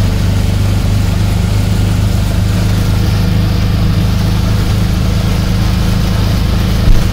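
Auto-rickshaw engine running steadily, heard from on board: a loud, even low hum with a haze of road and wind noise.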